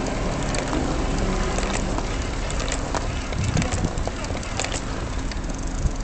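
Wheelchair rolling over rough asphalt: a steady rumble with the frame rattling in many small clicks and knocks, one sharper knock near the end.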